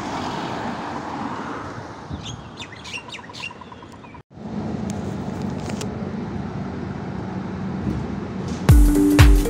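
Street ambience with traffic noise and a few short bird chirps. After a sudden cut, a bus engine hums steadily under road noise, and music starts loudly near the end.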